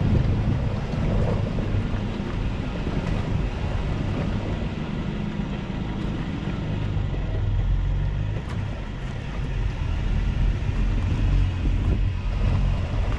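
4WD driving slowly over a rocky dirt track: a steady low engine and tyre rumble.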